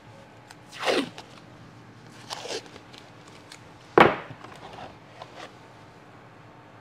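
Blue painter's masking tape being pulled and peeled in a few quick rips, each dropping in pitch: one about a second in, a softer one around two and a half seconds, and the loudest just after four seconds.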